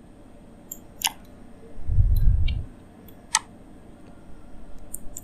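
Computer mouse clicks, a few single sharp clicks spaced out, the clearest about a second in and again past three seconds, with a dull low thump lasting about half a second around two seconds in.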